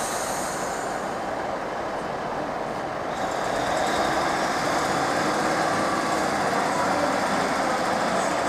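A train running at a station platform, a steady mechanical noise that gets louder about three seconds in.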